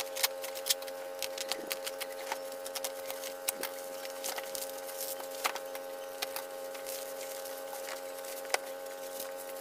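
Plastic packaging and bubble wrap crinkling and crackling as a parcel is slit open with a utility knife and torn apart by hand: many irregular sharp crackles over a faint steady hum.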